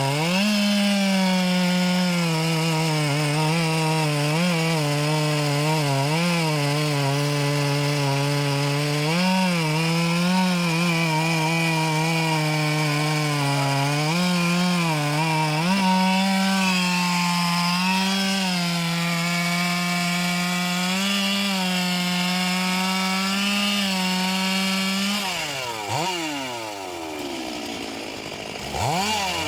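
Two-stroke chainsaw at full throttle cutting into a large anjili (wild jack) trunk, its engine pitch dipping and recovering as the chain bites. About 25 seconds in the throttle is let off and the engine winds down toward idle, then revs sharply back up near the end.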